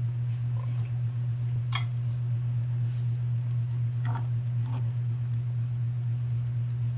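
A steady low hum, with a few light clicks and taps as a spoon stirs a pot of simmering beef broth: one sharp click about two seconds in, and two softer taps a little past four seconds.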